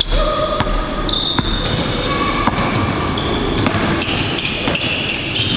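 Basketball game on a hardwood gym floor: the ball bouncing several times at uneven intervals and sneakers squeaking in short high squeals, echoing in a large gym.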